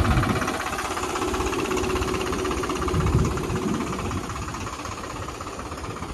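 Swaraj 735 FE tractor's three-cylinder diesel engine idling steadily. Twice there is a heavier low thud, once at the start and once about three seconds in, as an iron bar knocks packed soil off the cultivator tines.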